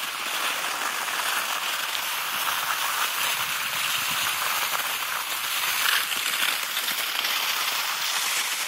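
Skis sliding over snow: a steady scraping hiss.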